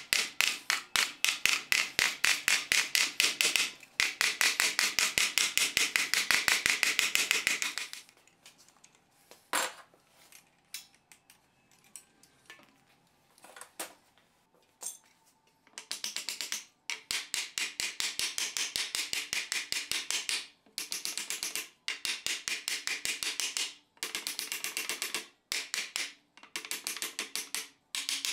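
Ball-peen hammer tapping rapidly on wooden wheel felloes, about five blows a second, driving them down onto the spoke tenons. The blows stop about a quarter of the way in, with only a few single taps for several seconds, then start again in quick runs with short pauses.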